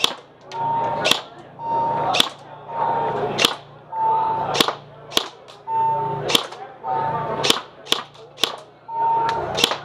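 Airsoft rifle fired about once a second, about nine sharp shots. Each shot comes after a short rasping sound with a steady whine.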